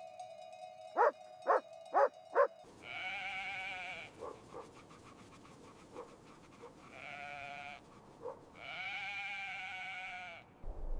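Animal calls: four short, sharp yelps about half a second apart over a steady tone, then three drawn-out, wavering bleat-like cries, the last and longest near the end.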